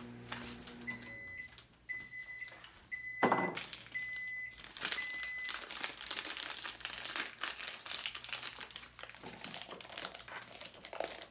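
Microwave oven finishing its heating cycle: its low running hum stops and it beeps five times, about once a second. A loud knock comes about three seconds in, followed by rustling and handling noises.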